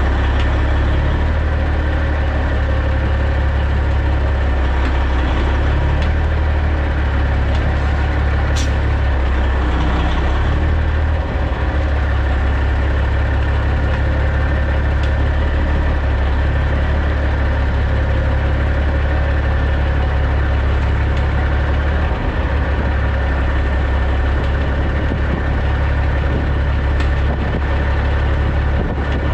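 The CAT C15 diesel of a 2006 Peterbilt 379 running steadily at low idle while the truck reverses slowly under light load.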